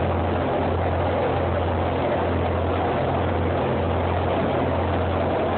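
Engine of a large fishing boat under way, a steady low drone, with an even rush of wind and water over it.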